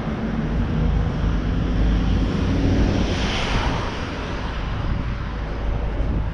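Street traffic with wind rumbling on the microphone; a vehicle passes close, its tyre and engine noise swelling to a peak about three seconds in and then fading.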